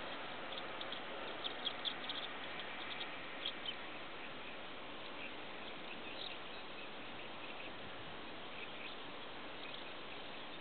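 Outdoor wetland ambience: a steady hiss with faint, short high-pitched chirps, most of them in the first four seconds.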